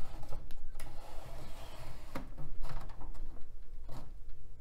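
Plastic removable hard-drive caddy being slid back into a computer tower's drive bay: a scraping slide and a few sharp plastic clicks and knocks as it goes home.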